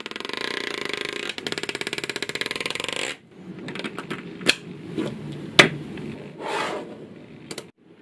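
Small magnetic balls clicking in a fast rattling run for about three seconds as a card is worked along a chain of them, then a few single sharp clicks as balls snap together, with a short rustle between them.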